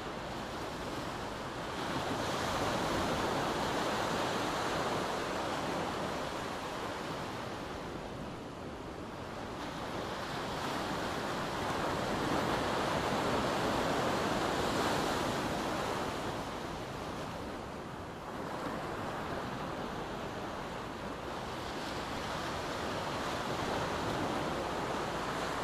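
Gentle surf washing up a sandy beach, a steady rush of water that swells and fades as each wave comes in, about every eight to ten seconds.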